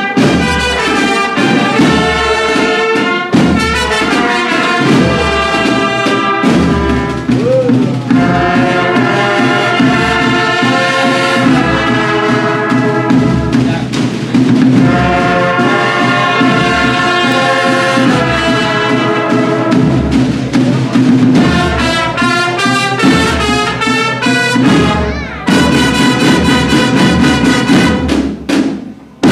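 Agrupación musical brass band of trumpets and trombones playing with drums, a regular drum beat underneath; the piece ends shortly before the close.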